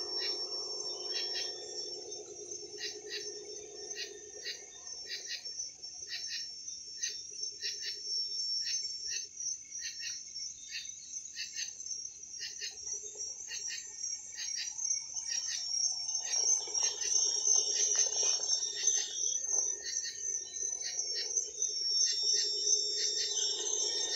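Night chorus of crickets: a steady high trill with rhythmic chirps about twice a second. Underneath, the electric motor and geartrain of a Traxxas TRX-4 RC crawler whine in spells, at the start and louder from about two-thirds of the way through.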